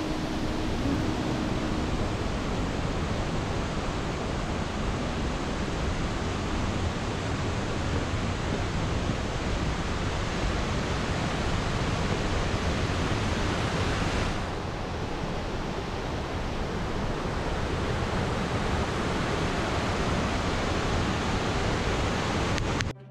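Steady rush of a waterfall and fast mountain river pouring over rocks, a loud, dense hiss that dulls a little about halfway through and cuts off suddenly at the very end.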